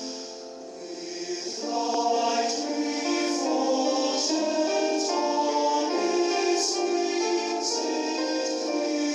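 Choral music: a choir singing long, sustained notes. It is quieter at first and swells back to full strength about two seconds in.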